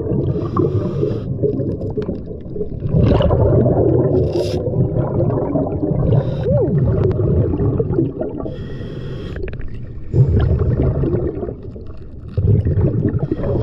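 Scuba diver breathing through a regulator underwater, heard through a camera: two short hissing inhalations, one at the start and one about two-thirds through, each followed by a long, low rumble of exhaled bubbles.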